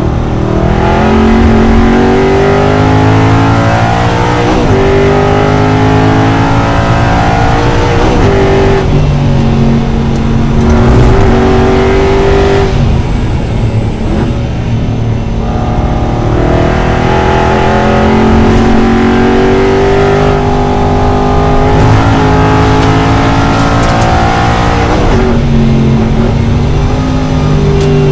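Aston Martin V8 Vantage GT4 race car's V8 engine at racing speed, heard from inside the cockpit: the revs climb and drop back again and again through gear changes and lifts for the corners.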